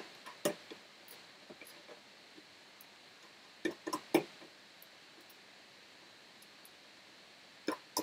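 Several light clicks and knocks of metal hardware being handled as a copper-heatpipe tower CPU cooler is set onto a motherboard: one about half a second in, three close together near the middle, and two near the end.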